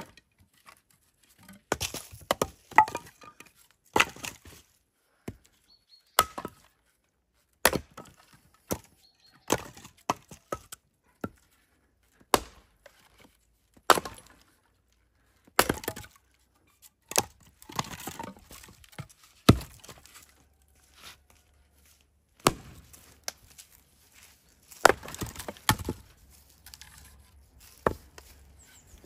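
Axe chopping firewood: sharp, separate chops landing about every one to two seconds, some trailing off in a short crackle of wood.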